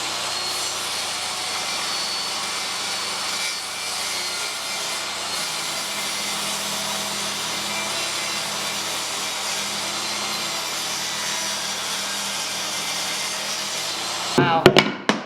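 DeWalt DWE7485 8¼-inch portable table saw running and cutting wood: a loud steady motor noise with a high whine. The saw stops abruptly near the end.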